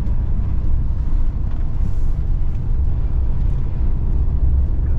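Camper van driving on the road: a steady low rumble of engine and road noise.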